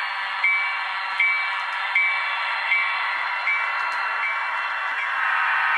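HO scale Bachmann DD40AX model diesel locomotive running along the track: a steady whirring of motor, gears and wheels, with a short, high ringing tick repeating about every three-quarters of a second.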